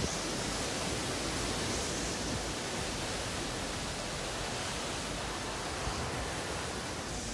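Hurricane wind blowing hard through trees, heard as a steady, even rushing noise.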